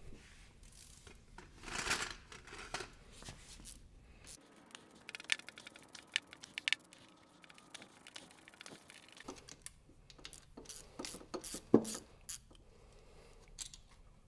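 Hand ratchet clicking as small bolts are undone, then light metal clicks and taps as the loosened bolts and a bracket are handled, with one sharper knock late on.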